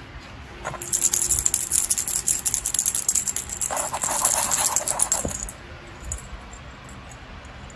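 Hollow plastic cat toy ball rattling as it is shaken by hand: a dense run of rapid clicks that starts about a second in and stops abruptly about five and a half seconds in.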